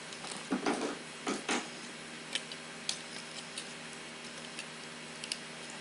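Light plastic clicks and rubbing as a plastic Transformers action figure is handled and turned in the hands, with two louder rustles in the first second and a half and scattered small ticks after, over a low steady hum.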